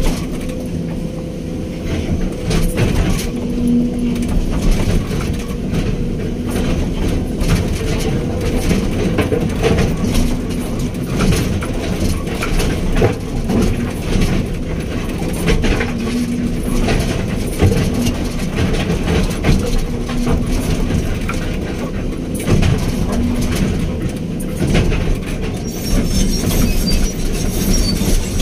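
Hydraulic excavator working: a steady diesel engine drone with frequent irregular clanks and knocks from the machine.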